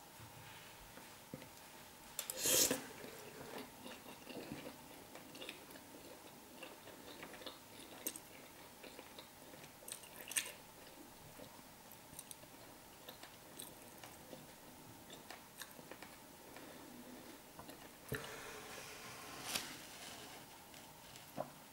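Faint sounds of someone eating, chewing with scattered small clicks, plus a brief rustle about two and a half seconds in and another near the end.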